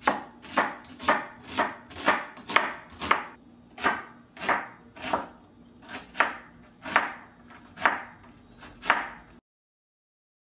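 Chef's knife chopping a red onion on a wooden cutting board: steady knocks of the blade on the board, about two a second, until the sound cuts off suddenly near the end.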